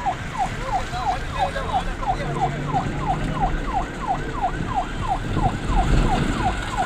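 Police vehicle siren in a fast yelp: a rapid train of short falling whoops, about three a second.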